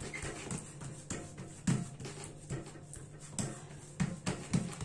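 Hands patting and pressing soft semolina-and-cheese dough flat on plastic cling film: a run of soft, irregular pats, several a second, with a few louder ones.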